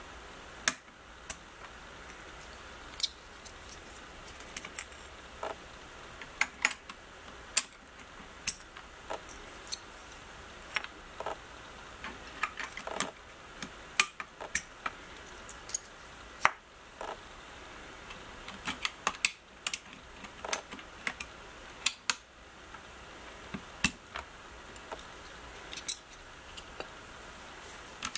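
Ajazz K690T mechanical keyboard with stock Kailh Box Red switches, keys pressed singly and in short irregular runs: sharp clacks, a few a second at most.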